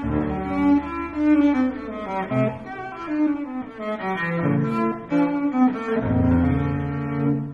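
Background music of low bowed strings, cello and double bass, playing a slow melodic line of held notes, with a sustained low bass note near the end.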